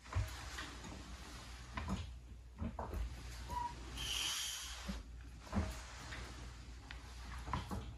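Two 4-ton hydraulic floor jacks, a Daytona and a Big Red, being pumped by their long handles side by side: slow pump strokes with scattered knocks and clunks from the handles and pump linkages as the saddles rise, and a brief hiss about halfway through.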